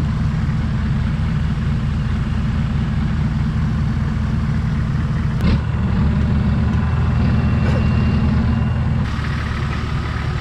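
Off-road 4x4's engine running steadily at low revs, a low drone. The sound changes abruptly twice, about five and a half and nine seconds in.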